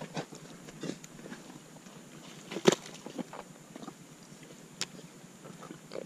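Scattered scuffs and knocks of movement in wet mud, with one sharper knock a little before halfway and another later on.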